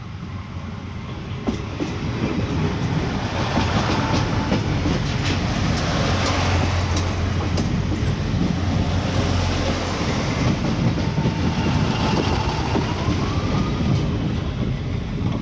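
Passenger train passing at close range: wheels rolling and clattering over the rails with a steady heavy rumble and low hum, growing louder over the first few seconds as the train arrives and then holding.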